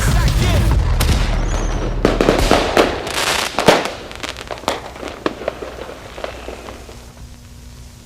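Fireworks bursting and crackling in irregular sharp pops that thin out and grow fainter. Music with a heavy bass ends about two seconds in.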